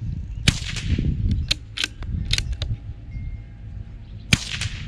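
Two shots from a suppressed CZ 457 Pro Varmint .22 LR bolt-action rifle, one about half a second in and one near the end, each a sharp crack with a short tail. Between them come a run of quick metallic clicks as the bolt is worked to chamber the next round.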